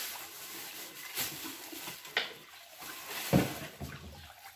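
A utensil stirring a steaming pot, knocking against it three times, the last knock the loudest, over a faint hiss.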